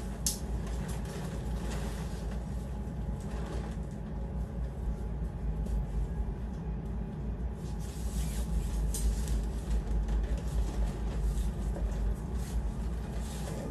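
Steady low rumble under scattered rustling and light knocks as the nylon fabric and poles of a beach tent are handled; the handling gets busier about eight seconds in.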